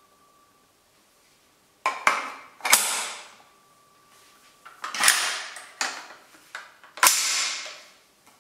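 Replica PPSh-41 submachine gun being handled, its drum magazine seated and its metal parts worked, giving a series of sharp metal clacks. There are about seven of them, the loudest about two, five and seven seconds in, each ringing on briefly.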